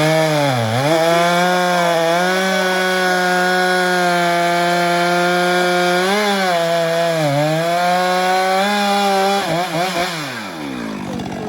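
Two-stroke chainsaw running at full throttle and cutting pine wood, its pitch sagging each time the chain bites. It gives a few quick revs near the end, then winds down.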